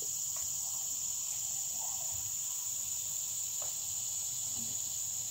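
A steady, high-pitched insect chorus, one unbroken shrill tone, with a few faint rustles underneath.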